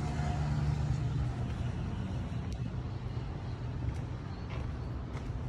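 Motor vehicle engine running with a low steady hum that fades about a second in, over a steady low rumble of road traffic.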